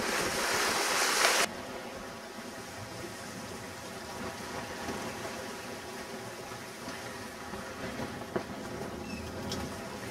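Wind buffeting the microphone over waves on a sailing yacht, cutting off abruptly about a second and a half in to a quieter, steady wash of water running along the hull. A single short knock comes near the end.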